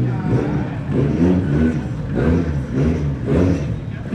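Nissan Skyline R33's engine revving hard, rising and falling in pitch about once a second as the throttle is worked on and off.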